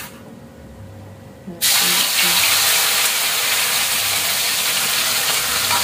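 Ground green chili sambal hitting hot oil in a wok and sizzling: a loud, steady hiss that starts suddenly about a second and a half in.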